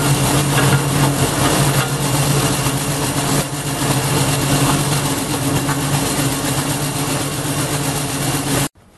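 Briggs and Stratton 5.5 HP single-cylinder engine of a garden wood chipper running steadily at speed, loud, its carburettor's blocked main jet just cleared. The sound cuts off abruptly near the end.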